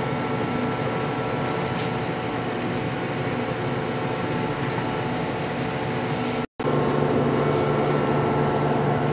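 Steady mechanical hum with several steady tones. It drops out for a moment about six and a half seconds in, then comes back with a deeper hum added.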